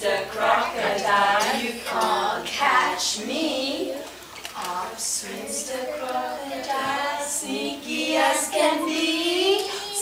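Young children singing a song together in high voices.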